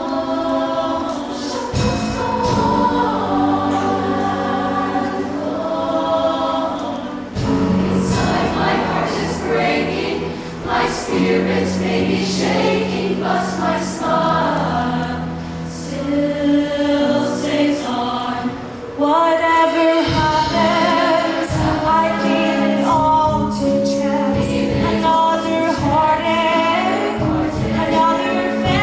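A show choir singing in harmony over instrumental accompaniment with sustained bass notes and frequent drum hits.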